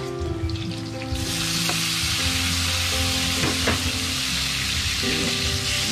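Hot oil in a pan sizzling as ingredients are sautéed. The sizzle jumps up suddenly about a second in, when food meets the oil, and then stays loud and steady, with a few stirring scrapes.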